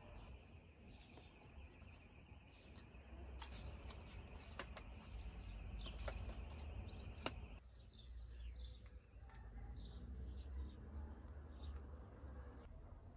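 Quiet outdoor ambience: a steady low wind rumble, a few light clicks and taps in the first half, and faint short bird chirps in the second half.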